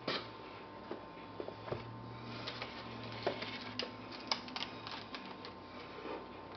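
Camera box contents being handled: a soft knock at the start, then scattered light clicks and rustling of cardboard, paper manuals and a plastic-sleeved CD being lifted out, over a faint steady hum.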